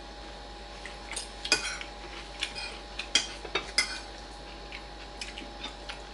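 Metal spoons and forks clinking and scraping against plates as people eat, in scattered irregular taps, the sharpest about a second and a half in.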